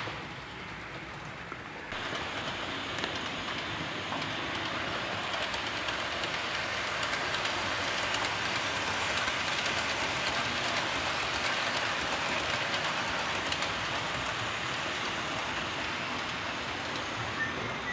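HO-scale model trains running on the layout's track: a steady rolling rattle of small wheels on rail, which gets louder about two seconds in.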